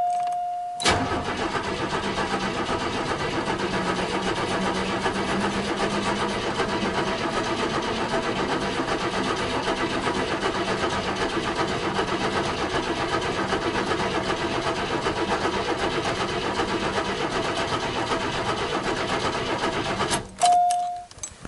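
1986 Buick Grand National's freshly rebuilt 3.8-litre turbo V6 being cranked over on the starter for about twenty seconds without firing, its fuel pump unplugged, to prime the engine oil pump before the first start. The cranking begins about a second in and cuts off near the end, with a steady chime sounding just before and after it.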